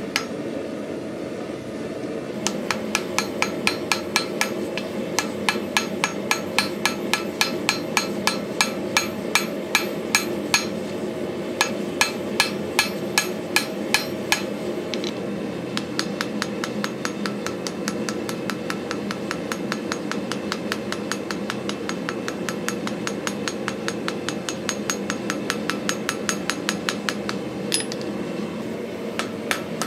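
Hand hammer striking white-hot steel on an anvil in rapid, even blows, about three a second, in two runs with a brief pause near the middle: a forge-welding pass on a cable Damascus axe head. A steady low rushing noise runs underneath.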